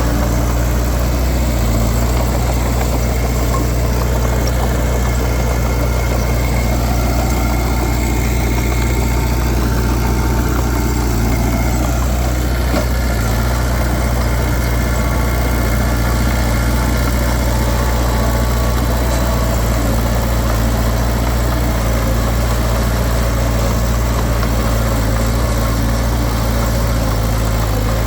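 Diesel engine of heavy earthmoving machinery running steadily at constant speed, a loud low drone with no revving.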